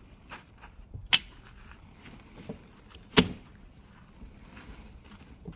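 Fold-out rooftop tent being opened by pulling down its telescoping aluminium ladder: light clicks and rattles, with two sharp clacks, one about a second in and one about three seconds in.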